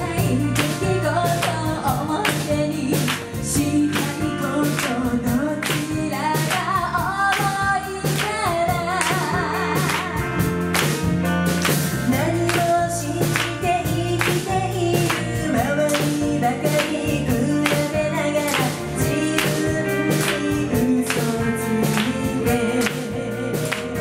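Live band playing a pop song: female voices singing over drum kit, electric bass and electric guitar, with a steady beat.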